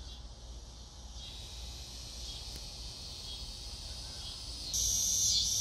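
Steady, high-pitched insect chorus that swells clearly louder near the end.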